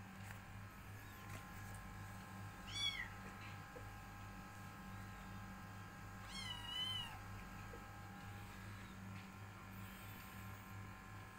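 Persian kittens meowing: a short high meow about three seconds in, then a longer wavering one near seven seconds, over a steady low hum.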